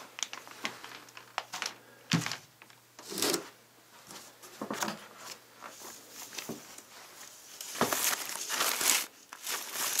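Plastic packaging crinkling and rustling in irregular bursts as it is handled: a clear plastic bag, then foam packing wrap inside a cardboard box. The crinkling is densest and loudest near the end.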